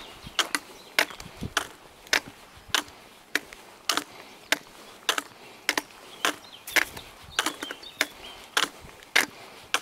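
Footsteps of a walker at a steady pace, a sharp tap with each step, a little under two steps a second.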